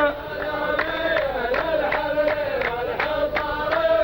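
A chorus of voices chanting a poetry-duel verse in a drawn-out tarouq melody, with sharp hand claps keeping time about two to three times a second.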